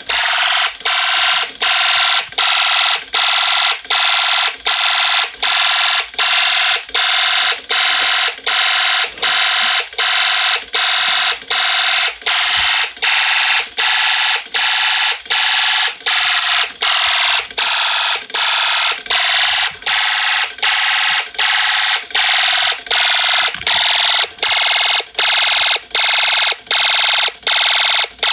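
Electronic alarm sounder on a Snap Circuits fire alarm system, sounding loudly and continuously with a harsh high-pitched tone broken by short, evenly spaced gaps.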